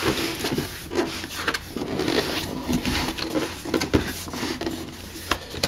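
Cardboard box flaps and inner cardboard packing handled by hand: cardboard rubbing and scraping against cardboard, with a few sharp knocks.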